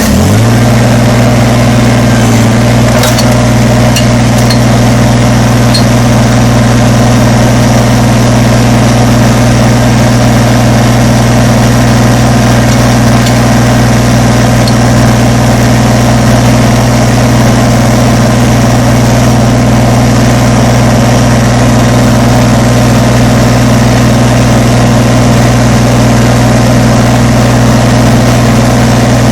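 Kubota BX compact tractor's three-cylinder diesel engine catching at the very start, then running at a steady speed.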